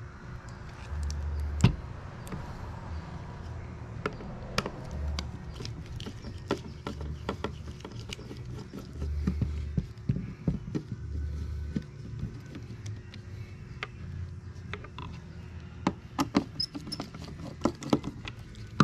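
Scattered clicks, taps and light metallic knocks of hand tools and parts as a seat belt retractor unit is taken apart, with short low rumbles between them.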